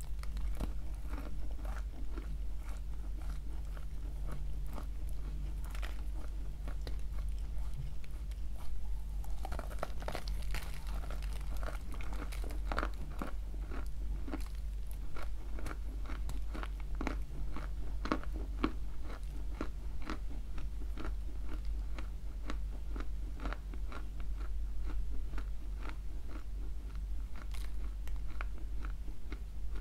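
Close-miked biting and chewing of a chunk of edible clay coated with a creamy paste: dense dry crunching made of many sharp crackles, sparser at first and thickest through the middle, over a steady low hum.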